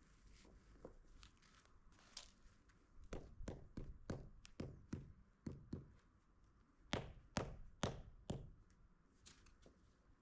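A run of hard knocks and taps from paving stones being handled and set in place: about six knocks at roughly two a second, then the loudest three in quick succession a little past the middle, with fainter taps before and after.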